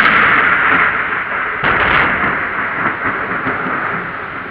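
Thunder rolling over heavy rain: loudest at the start, with a sharp crack about one and a half seconds in, then slowly dying away.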